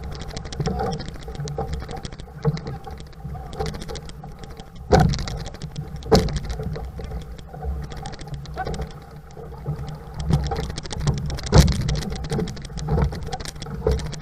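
Outrigger canoe under way: paddles driving through the water in a rhythm of roughly one stroke a second with splashing, over a steady low rush of wind and water at the camera fixed on the hull. A few sharper knocks stand out, about five and six seconds in and again near the end.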